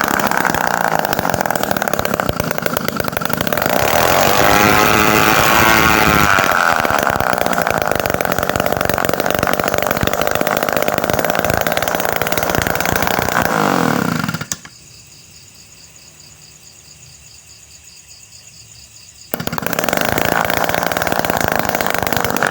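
Homemade mini two-stroke engine built from refrigerator-compressor parts running with a high buzz, its pitch sweeping up and down as it revs. About 14 s in it winds down with falling pitch and dies, and after about five seconds it comes back in suddenly and runs again.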